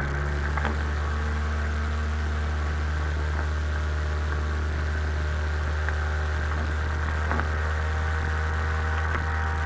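Sea-Doo XP jet ski's Rotax 787 two-stroke twin running at a steady throttle while underway. It makes a constant low drone that holds one pitch throughout.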